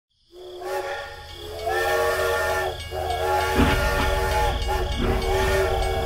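Steam-train whistle sound from a toy steam locomotive: four long blasts of a several-note whistle chord, one after another. About halfway through, a low rumble of the train running joins in.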